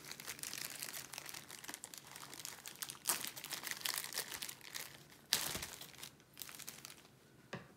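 Clear plastic film wrapping on a rolled diamond painting canvas crinkling as it is cut open with scissors and pulled apart, in irregular rustles with a sharper burst about five seconds in.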